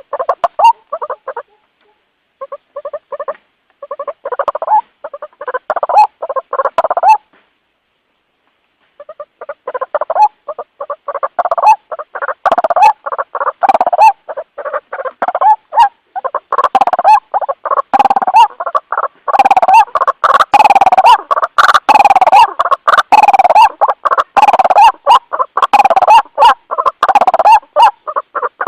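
White-breasted waterhen calling: fast runs of loud, repeated croaking notes, with breaks about a second in and again around seven to nine seconds in, then continuous calling to the end. It is the bird's call to others of its kind, used as a lure sound.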